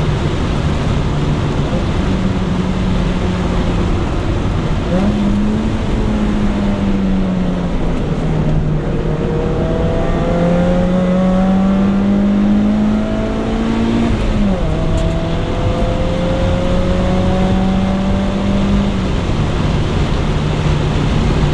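Honda Integra engine driven hard on a race track. Its note jumps up about five seconds in, climbs steadily for several seconds, then drops sharply at a gear change, and drops again a few seconds later.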